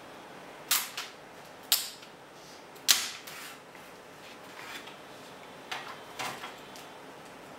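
Small hard objects being handled and set down on a workbench cutting mat: a handful of short, sharp clicks and knocks at irregular intervals, the loudest about three seconds in.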